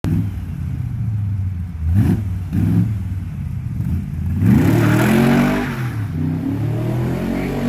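Chevy V8 engine in a Dax Cobra idling, with two quick throttle blips about two seconds in and a longer rev that rises and falls back to idle near the middle.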